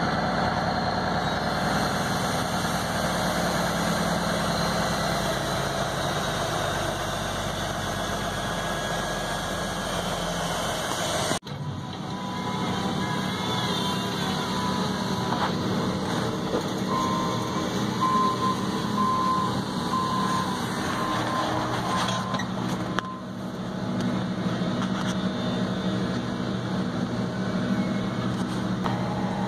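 A truck's engine idling, heard from inside the cab, with a steady low hum that changes abruptly about a third of the way in. Around the middle, a reversing beeper sounds for a few seconds over the engine.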